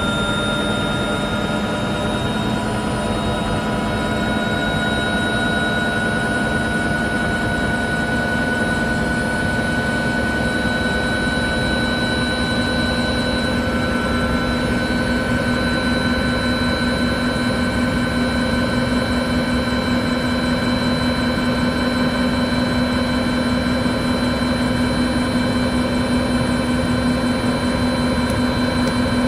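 Multirotor drone's motors and propellers whining steadily: several tones at once that creep slightly higher in pitch over the first few seconds, then hold.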